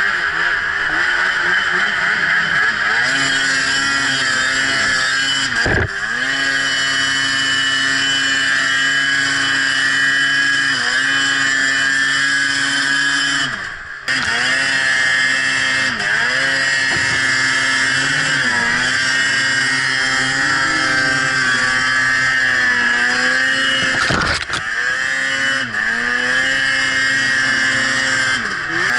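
Ski-Doo Summit two-stroke snowmobile engine revving up and down under load in deep snow, its pitch rising and falling with the throttle. The engine note briefly drops away three times, about 6, 14 and 24 seconds in.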